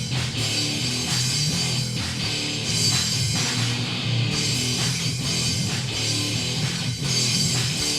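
Rock band playing an instrumental passage between vocal lines: guitar over a steady drum-kit beat.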